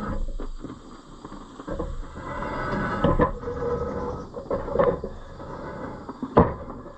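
Heavy steel tractor rear wheel being manhandled on its hub: metal scraping and shifting, with several sharp clunks, the loudest near the end.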